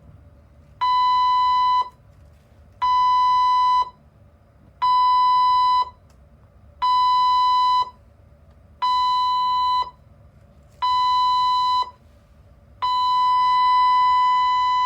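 Cruise ship's general emergency alarm: six short, steady, high-pitched tones of about a second each, two seconds apart, then one long tone of about three seconds. It is the end of the seven-short-one-long signal that tells passengers to go to their assembly stations.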